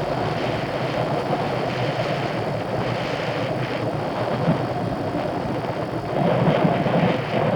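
Steady wind and road noise from riding a racing bicycle, an even rushing haze without pauses.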